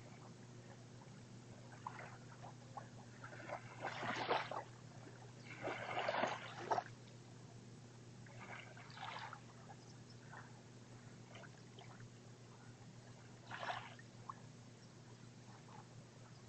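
Small waves lapping on a pebbly sand beach: a few soft, irregular washes, the strongest about four and six seconds in and another near the end, over a faint steady hum.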